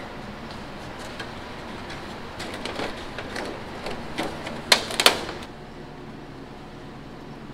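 Handling noises from an aluminium foil pan with a plastic lid: scattered crinkles and taps, then two sharp clicks close together about five seconds in, over a steady low hum.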